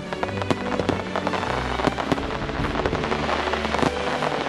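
Aerial fireworks bursting and crackling in rapid, irregular succession, many sharp cracks a second, over music with held notes and a low bass line.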